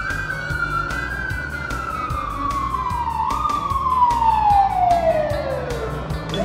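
A siren tone winding slowly down in pitch, with a brief lift about halfway through. Background music with a steady beat plays under it.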